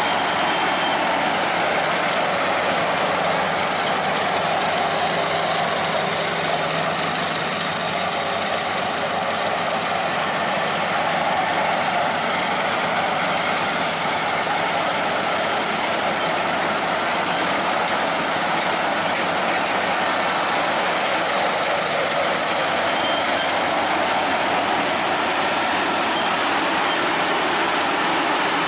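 Crown Sumo rice combine harvester running steadily while cutting and threshing rice: its engine and harvesting mechanism make an even, unbroken mechanical noise.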